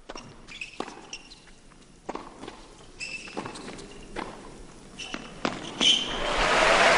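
Tennis rally on an indoor court: the ball struck back and forth by rackets, about one hit a second, with short shoe squeaks between hits. Crowd applause swells up near the end as the point is won.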